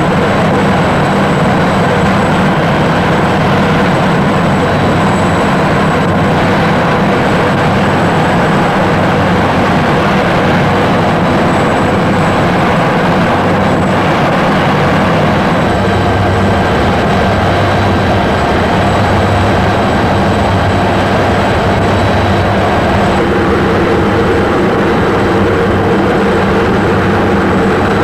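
Helicopter in flight heard from inside the cabin: a loud, steady drone of engine and rotor.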